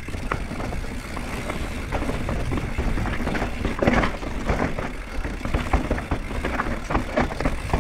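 Downhill mountain bike rolling fast over a rocky, rooty dirt trail: a steady rush of tyre and wind noise with frequent knocks and rattles from the bike. The loudest clatter comes about four seconds in.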